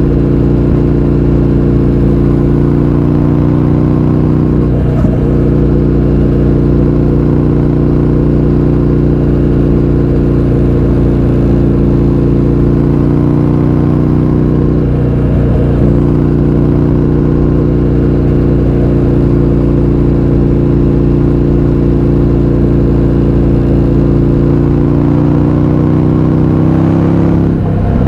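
2020 Indian FTR 1200 Carbon's V-twin running through an Akrapovič exhaust with the baffles removed, holding a steady engine note under way. There are brief breaks in the note about 5 and 15 seconds in, and the pitch rises near the end as the revs climb.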